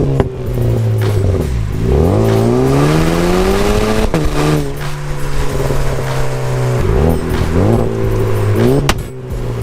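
Turbocharged four-cylinder Cadillac ATS with the muffler cut off, idling and being revved. One rev climbs for about two seconds before falling straight back to idle, shorter blips follow, and a sharp pop comes near the end.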